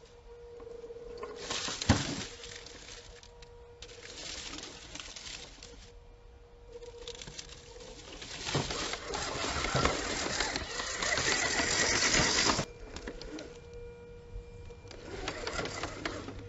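Electric motor and gear drivetrain of a 1/10-scale RC rock crawler on an Axial chassis whining as it crawls, with tyres crunching over rocks and bark chips and a sharp knock about two seconds in. The loudest stretch comes past the middle and cuts off abruptly.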